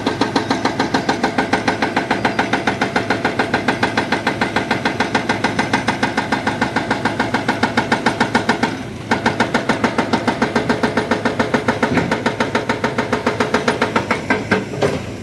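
Hydraulic rock breaker on a Volvo excavator hammering rock, a fast even pounding of about eight or nine blows a second over the engine. It stops for a moment about nine seconds in, then resumes, and the blows turn uneven near the end.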